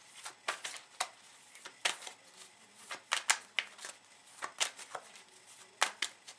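Tarot cards being handled and shuffled by hand: a series of sharp, irregularly spaced snaps and slaps of card against card.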